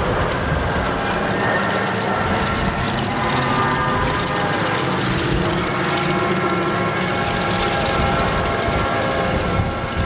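Boeing B-29 Superfortress flying past overhead, its four Wright R-3350 radial piston engines droning steadily.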